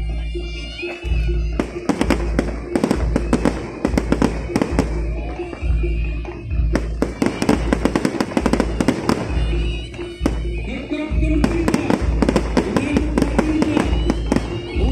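Fireworks going off in rapid volleys of sharp cracks and pops, starting about a second and a half in and pausing briefly twice, over loud music with a heavy repeating bass beat.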